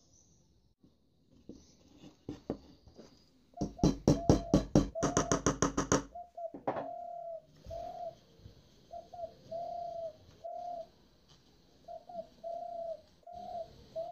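A quick run of sharp clicks lasting about two seconds, followed by a dove cooing in short rounded notes repeated about once or twice a second.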